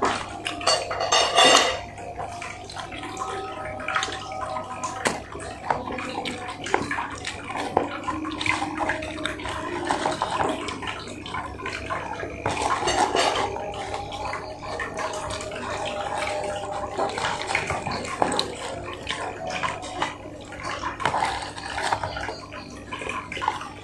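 Close-up chewing and wet lip-smacking while eating fried chicken, with the cardboard chicken box being handled and rustling; a louder rustle comes about a second in.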